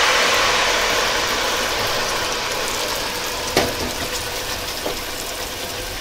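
Strained tamarind pulp sizzling loudly as it hits hot oil with fried cumin in a pan, the hiss slowly dying down. A sharp clink about three and a half seconds in, and a lighter one near the end.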